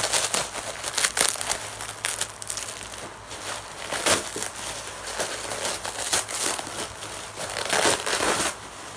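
Plastic packaging being unwrapped and handled, crinkling with irregular crackles. Louder rustles come about four seconds in and again near the end.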